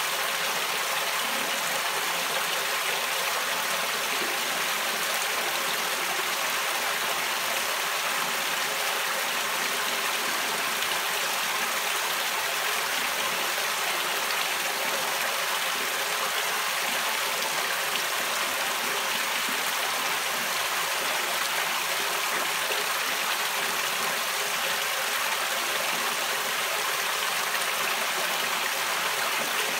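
Water pumped out of the perforated inlet pipe of a homemade fleece roll filter, running steadily onto and through the fleece in an even splash.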